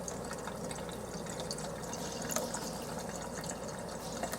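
Tap running at a slow flow: a steady watery hiss with scattered faint ticks of drops. No popping is heard from the plain tap water.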